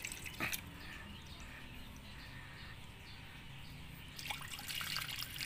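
Water trickling and splashing from a pond pump's discharge hose into a shallow channel as the pond is drained, with one sharp click about half a second in.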